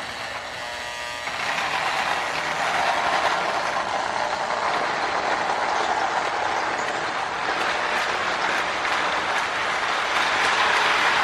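Marx O-gauge Commodore Vanderbilt toy locomotive with a 1666 motor running on tinplate track, pulling a string of tank cars: a steady whirr and clatter of motor gears and wheels on the rails. A brief buzzing tone comes first, and the running sound picks up about a second in.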